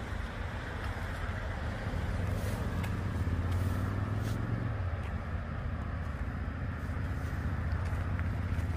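A car driving, with a steady low engine and road rumble.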